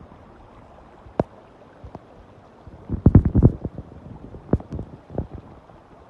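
Wind buffeting the microphone in a rainstorm: scattered low knocks, with a dense run of heavy thumps about three seconds in over a steady rushing background.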